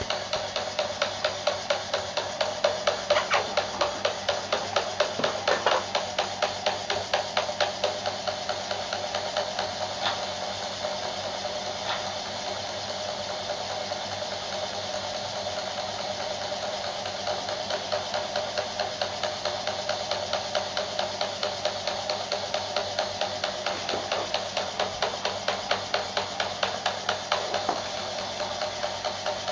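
Lego Power Functions electric pneumatic pump running, its motor-driven piston pumping in a fast, even chugging of several strokes a second, a little louder in the first few seconds.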